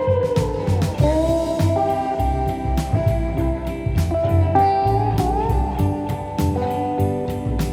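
Background music: a guitar melody with gliding, slide-guitar notes over a steady beat.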